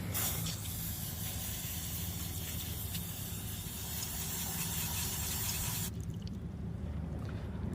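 Aerosol brake cleaner spraying in one long continuous hiss, cleaning the oil filter housing parts, cut off suddenly about six seconds in. A low steady hum runs underneath.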